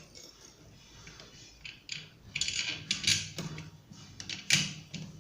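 Small metal parts and screws being handled while a ceiling fan is put together: scattered light clicks and clinks, with sharper knocks about three seconds in and again about four and a half seconds in.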